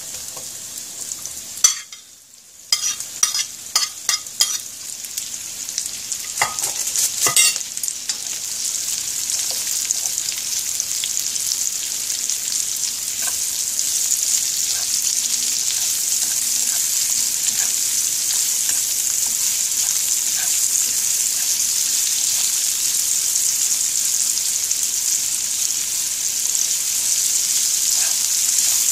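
Sliced bitter melon tipped into a hot frying pan with SPAM and shallots and stir-fried with chopsticks: a run of clicks and taps for the first seven seconds or so, then steady sizzling that builds up and holds.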